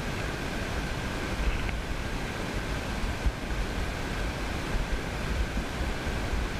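Wind buffeting the microphone over a steady rush of sea waves, with a faint steady high whine.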